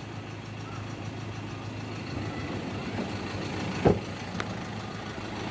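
Ford Ranger diesel engine idling steadily after its crankshaft position sensor was replaced, with a sharp click about four seconds in.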